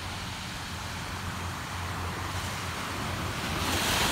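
Ocean surf washing onto a sandy beach, growing louder near the end as a wave breaks, over a low steady rumble.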